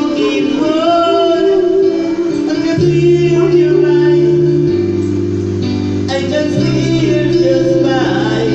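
A song sung with guitar accompaniment, the bass notes changing every second or two.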